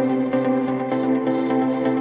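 Ambient background music: held notes that shift in pitch every fraction of a second over a steady low tone.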